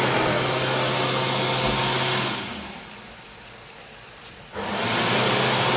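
Electric hand dryer running loud and steady, winding down a little over two seconds in, then starting up again abruptly about two seconds later, as when hands are pulled out and put back under the sensor.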